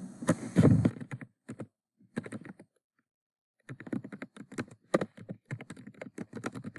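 Typing on a computer keyboard: quick runs of key clicks, with a pause of about a second near the middle before the clicking resumes.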